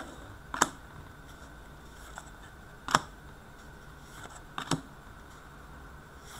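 Hockey trading cards being flicked one at a time through a hand-held stack, giving three short, sharp card snaps, the loudest near the middle.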